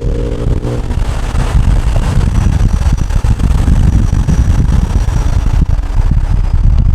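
A car engine running loud under acceleration, a deep rumble that grows louder after the first second or so, with a faint high whine over it.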